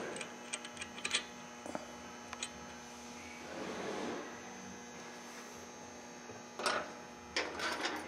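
Steady electrical hum with scattered light metallic clicks, a few near the start and a cluster near the end, as the classic Mini gearbox's mainshaft gear and locking ring are worked into place by hand.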